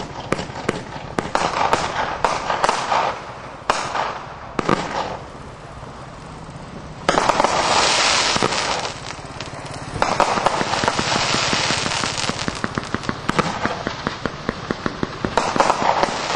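Crossette fan firework firing: a rapid run of sharp cracks and pops as its comets shoot up and split into crossettes. A sudden loud stretch of dense crackling hiss comes about seven seconds in and again at ten seconds, with a burst of sharp cracks near the end.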